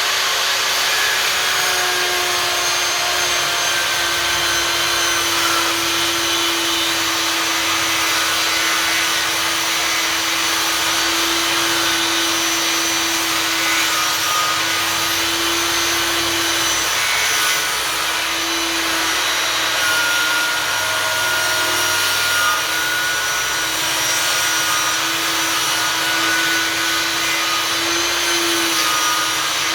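Einhell table saw running and ripping a thick wooden board: a continuous motor whine over the noise of the blade cutting wood, the pitch dipping a little about two seconds in and wavering under the load of the cut.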